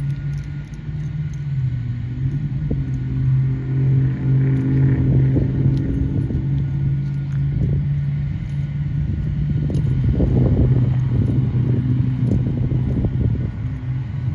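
A motor vehicle engine running steadily nearby, a low even hum, with bouts of louder low rumble about four seconds in and again about ten seconds in.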